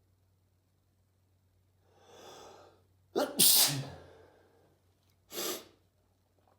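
A person sneezing: a drawn-in breath about two seconds in, then a loud, sharp sneeze a moment later, followed by a short breath near the end.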